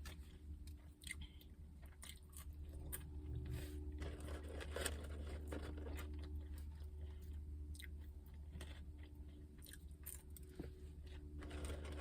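A person chewing and biting McDonald's fast food close to the microphone, with many small irregular crunchy and wet mouth clicks, over a steady low hum.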